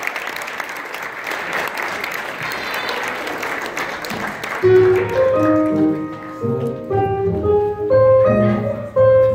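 An audience applauding, then, about halfway through, a piano starting a lively tune of short, clear notes over a steady bass line.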